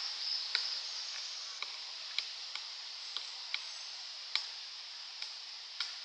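Pileated woodpecker pecking at a rotting log: sharp, irregular taps, about one or two a second, over a steady background hiss.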